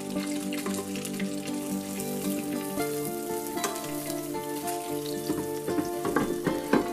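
Hot lamb chops sizzling and crackling in an air fryer basket as they are turned with metal tongs, with scattered clicks. Sharper knocks come near the end as the basket is handled. Background music plays with held notes.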